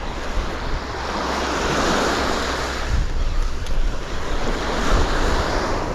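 Surf washing onto the beach, swelling twice, with wind buffeting the microphone.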